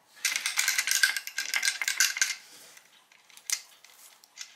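Metal parts of a clock mainspring barrel and winder clinking and rattling as they are handled: a quick run of clinks with a ringing metallic tone for about two seconds, then a single click a little later.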